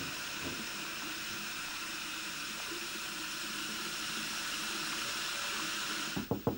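Water running steadily from a tap into a bathroom sink. About six seconds in it cuts off suddenly and a few quick knocks sound on a wooden door.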